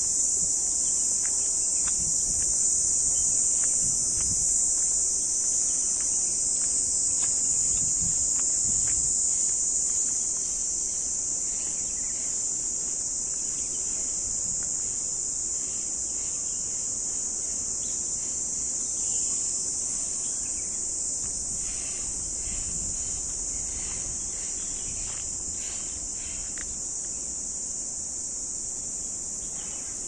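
Dense insect chorus: a steady, high-pitched shrill drone that holds without a break.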